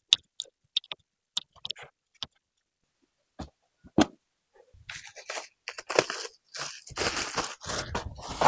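Scattered light clicks and a couple of knocks as a walleye is laid into a soft cooler, then the crinkling, crunching rustle of a plastic bag of ice being handled and opened over it, growing denser and louder in the last second or two.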